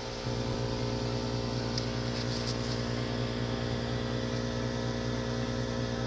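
Home-built waste-oil furnace running: a steady mechanical hum from its air blower and oil burner, stepping up a little louder about a quarter second in and then holding even.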